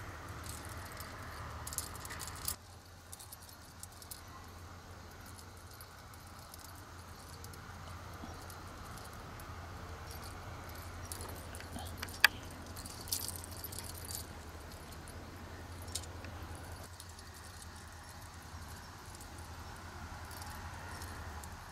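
Light metallic jingling and small clicks from a feather cat-teaser toy on a string being flicked through grass, with one sharp click about twelve seconds in, over a steady low hum.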